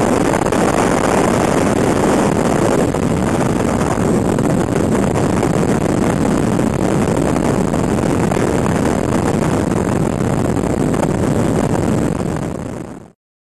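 Motorcycle riding at highway speed: a steady rush of wind and road noise that fades and cuts off to silence near the end.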